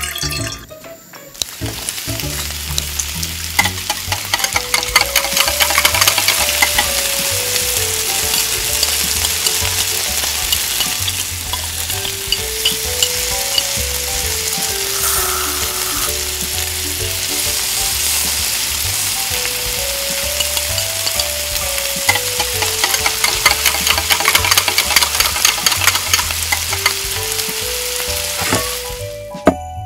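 Diced tomatoes and green peppers sizzling and crackling in hot oil in a tiny steel wok, with the clicks and scrapes of a small utensil stirring them. The sizzle starts a moment in and cuts off suddenly near the end, over a light background melody.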